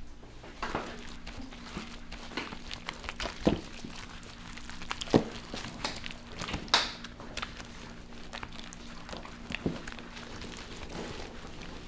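Irregular knocks, clicks and rustling over a steady low hum, the loudest knocks about a third and halfway through.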